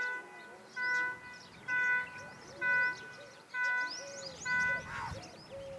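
A steady-pitched note repeated about once a second, six times, each lasting about a third of a second, over many small birds chirping.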